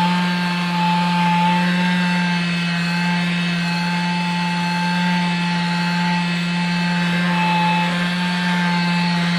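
Air-powered mini polisher running steadily at full speed, a constant whine over a hiss, its pad buffing the motorcycle engine's side cover.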